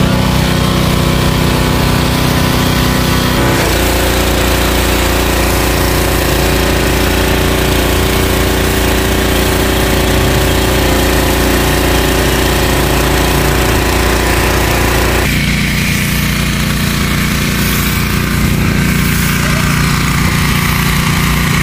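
The 8 hp, 223 cc petrol engine of a high-pressure washer running steadily, driving its triplex pump while a foam lance sprays with a hiss. Its tone changes abruptly about four seconds in and again after about fifteen seconds.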